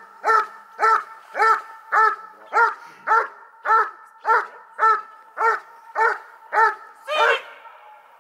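German Shepherd barking at a helper holding a bite sleeve: a steady run of barks, about two a second, that stops about a second before the end.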